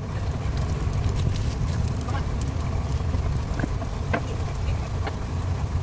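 Crab-meat patties frying in oil in a pan, with scattered sizzling pops and crackles over a steady low rumble.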